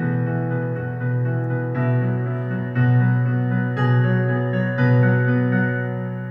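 Recorded music played back through a home-built discrete 60-watt transistor amplifier and a loudspeaker: sustained chords that change about once a second, getting quieter near the end.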